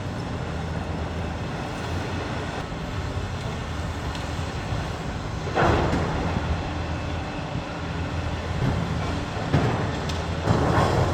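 A steady low mechanical rumble, like a large engine running, with a louder rushing surge about five and a half seconds in and another near the end.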